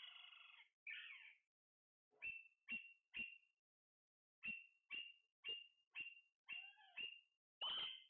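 Caged parakeets calling: two longer, harsh screeches at the start, then a run of short, sharp high calls about two a second, the last one near the end the loudest.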